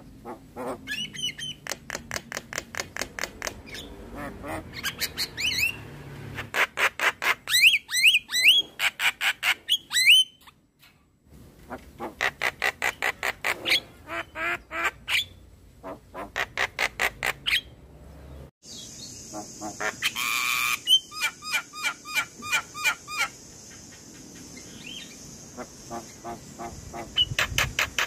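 Javan myna calling: runs of harsh, rapidly repeated chattering notes, about three or four a second, broken by short pauses. About two-thirds of the way through, a steady high hiss joins underneath and there is one loud harsh burst.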